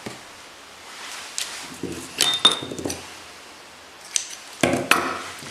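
Metal scissors and small hand tools clinking and knocking on a tabletop: a run of sharp clinks with a brief ringing note about two seconds in, then two louder knocks near the end.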